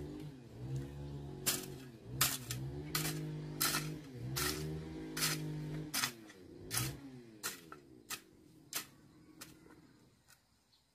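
Background music of held, sliding tones with a sharp click about every two thirds of a second, fading out near the end.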